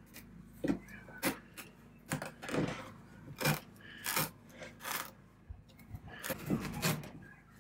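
Brittle old ribbed upholstery fabric tearing and crackling as it is pulled away from a wooden chair seat, in a series of short, irregular rips.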